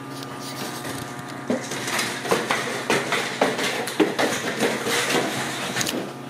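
A Ragdoll kitten batting and shoving a long cardboard box across a tile floor: irregular knocks and scrapes, about two a second, over a steady low hum.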